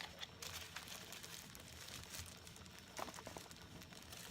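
Packaging crinkling and rustling faintly as it is unwrapped by hand, with a few sharper rustles about three seconds in.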